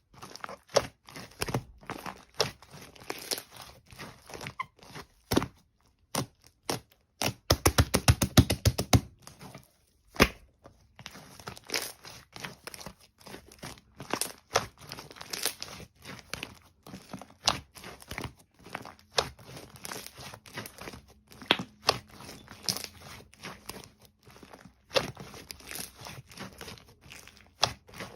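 Slime being pressed and stretched by hand, making irregular sharp clicks and crackling pops, with a quick run of about ten pops a second around eight seconds in.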